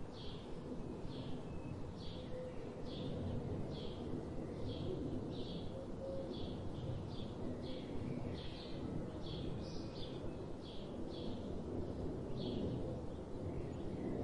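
A bird chirping over and over, short high calls about one to two a second with a couple of brief pauses, over a steady low background rumble.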